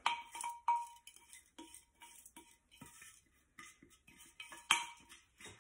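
A spatula scraping and tapping inside a glass jar as wild garlic seeds are scraped out into a colander: scattered light clinks and scrapes. The jar gives a brief glassy ring twice in the first second, and there is a louder clink near the end.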